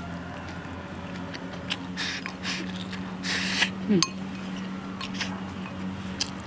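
Close-up eating sounds: chewing and sucking on braised pork trotter, with a few louder sucking noises around the middle and light clicks of chopsticks against the bowl, over a steady low hum.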